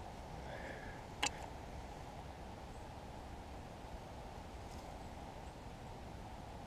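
Dry bracken tinder being handled and pushed into a fire lay by hand, with a single sharp snap about a second in over a faint, steady low background hiss.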